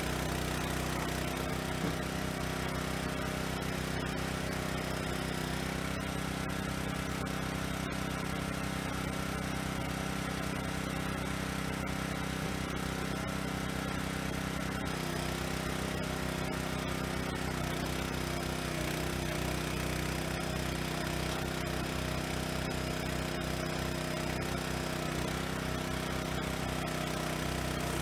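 Small firewood processor's engine running steadily, a constant hum with no rise or fall in loudness; a couple of its tones change slightly about six seconds in and again about fifteen seconds in.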